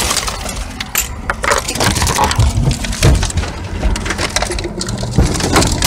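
A car's side windows being smashed in: a run of sharp cracks and crunching as the tempered glass shatters and crumbles, with the phone recording it knocked about.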